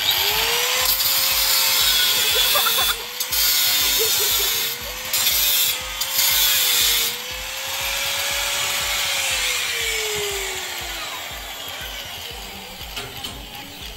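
Handheld angle grinder cutting through the metal bars of a window grille: the motor spins up at the start, runs with a harsh cutting hiss and brief dips as the disc bites, then winds down in pitch after about nine seconds.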